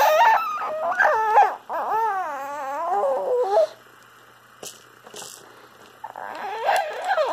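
A baby making high-pitched, dolphin-like squeals whose pitch warbles and swoops up and down. It breaks off about halfway through and starts again a little over a second before the end.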